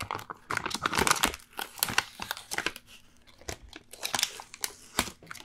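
Peel-off film lid being pulled back from a plastic microwave baby-food tray, crinkling and crackling unevenly, with a sharp click about five seconds in.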